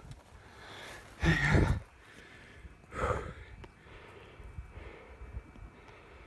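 A person breathing heavily and out of breath, with two loud, hard breaths about a second and a half apart and quieter breathing between them.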